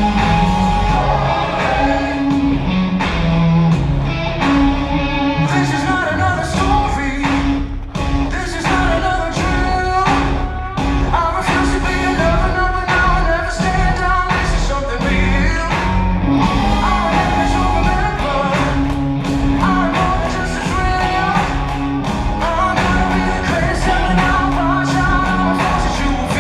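Show soundtrack music with singing over a rock-style band with guitar and a steady beat, played loud over the theater's sound system.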